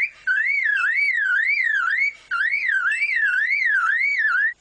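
Superb lyrebird mimicking a car alarm: a loud warbling tone sweeping up and down about three times a second, in runs broken by two short gaps, cutting off abruptly near the end.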